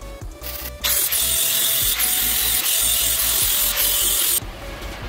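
Angle grinder grinding a steel tube: a loud hiss with a high whine that wavers as the disc is loaded. It starts about a second in and stops abruptly near the end.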